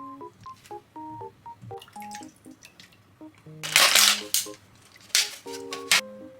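Light, plucky background music with short bouncing notes. Three loud bursts of rustling noise break in over it, a long one near the middle and two short ones toward the end.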